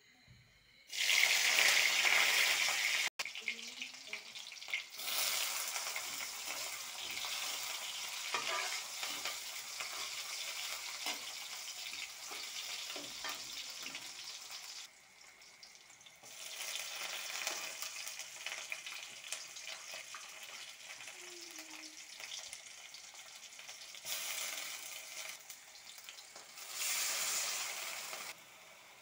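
Sliced onions and green chillies frying in hot oil in a karahi. The sizzle starts loudly about a second in, then falls and swells again several times, with a metal spatula scraping the pan as the food is stirred.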